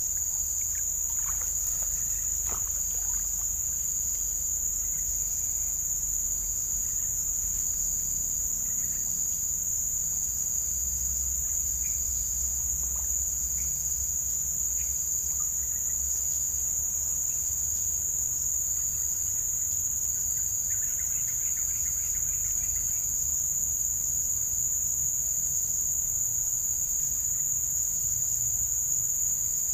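Insect chorus: a steady, high-pitched drone, with a fainter call repeating about once a second beneath it.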